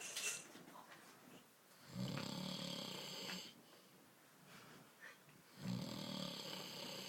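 A man snoring in deep sleep after a lot of beer: two long snores about three and a half seconds apart, each lasting about a second and a half.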